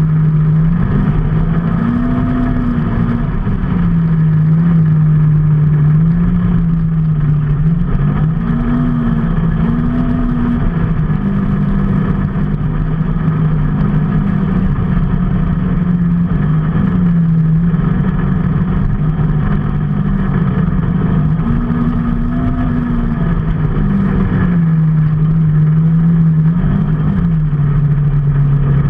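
Vehicle engine running under way, its pitch rising and falling again and again as the throttle and speed change, over a steady rumble of road and wind noise.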